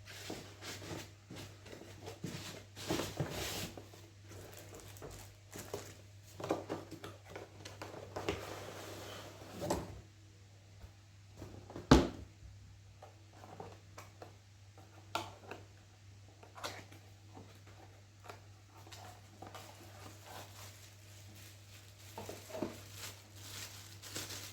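Unpacking a boxed laptop by hand: scattered rustles, scrapes and knocks of cardboard and packaging being handled, with one sharp knock about halfway through.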